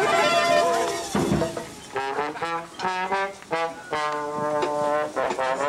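Brass marching band playing: a loud held chord, a brief lull about a second in, then a run of short, punchy horn notes.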